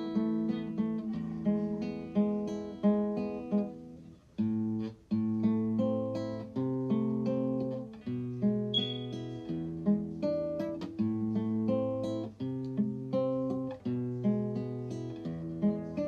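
Background music: an acoustic guitar tune of plucked notes that ring and fade, with lower bass notes coming in about four seconds in.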